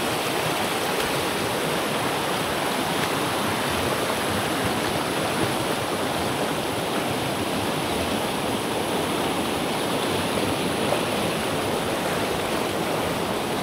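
River water running over rocks in a shallow rapid: a steady rushing.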